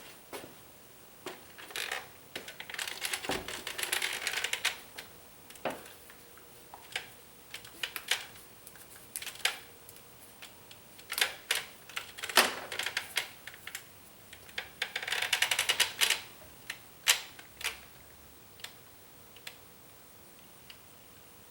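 Scattered sharp clicks and knocks of hand work with small hard parts, with two longer stretches of rapid rattling clatter, about three seconds in and again around fifteen seconds in.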